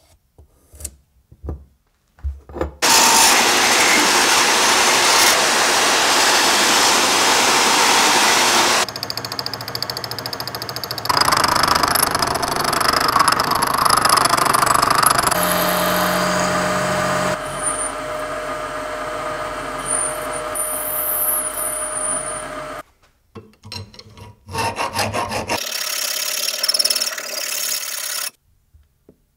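Metal shaping of a brass knife guard in several takes: a loud stretch of cutting noise, then a milling machine's end mill cutting the brass with a steady machine hum, and near the end a hand file rasping back and forth across the guard clamped in a vise.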